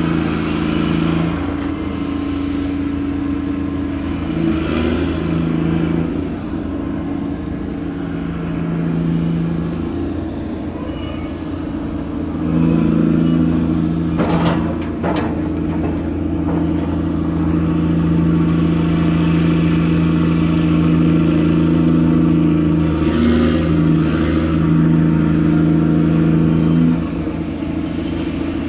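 Grab-crane machinery of a gut ship (aggregates carrier) running during cargo handling: a steady engine hum that works harder from about twelve seconds in until shortly before the end, with two sharp clanks about halfway.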